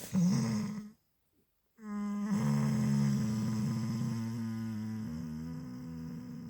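A sleeping pet snoring: a short snore at the start, then about two seconds in one long, drawn-out snoring groan that holds its pitch for several seconds and slowly fades.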